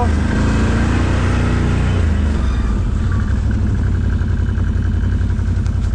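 ATV engine running at a steady pace while the quad is ridden.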